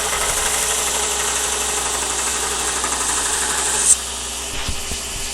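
Belt grinder running with a knife blade held against the belt, a steady high grinding hiss. About four seconds in, the grinding peaks sharply and then stops as the blade comes off, leaving the quieter steady run of the grinder's motor and belt.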